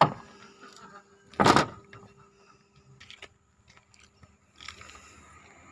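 A sharp knock, then about a second and a half in, a loud bang as the steel cab door of a MAN TGS truck is slammed shut; faint light ticks follow.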